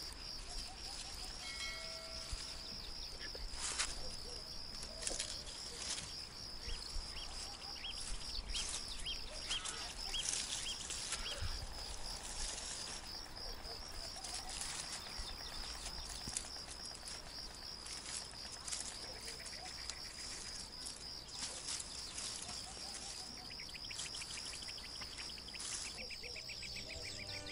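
Summer field ambience: a steady, high, pulsing insect trill, with scattered faint bird chirps and occasional short clicks and rustles from plants and tomatoes being handled.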